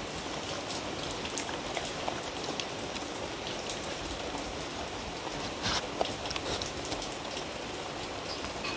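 Dog eating from a wooden bowl: wet chewing and smacking with scattered small clicks, a few louder ones near the middle, over a steady hiss.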